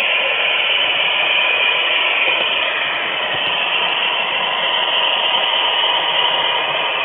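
HO scale model railroad flat car rolling along the track, heard through a small camera taped to the car: a steady rushing noise with a faint whine held under it.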